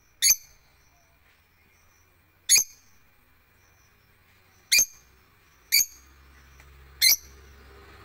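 Lovebirds in an aviary giving five short, sharp, high-pitched chirps, spaced one to two seconds apart.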